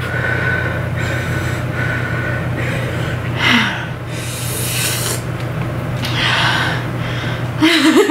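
Hard, hissing breaths and sniffs through an open mouth burning from very spicy ramen, several strong ones a few seconds in, over a steady low hum. A short voice sound comes just before the end.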